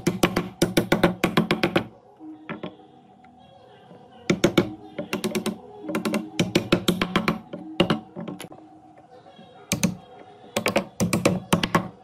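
Quick runs of sharp taps on wood, several strikes a second, in three bursts with short pauses between them, over faint background music.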